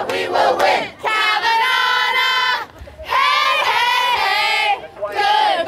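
A group of protesters, women's voices prominent, chanting and then singing together in long held notes: three drawn-out phrases, each broken by a brief pause.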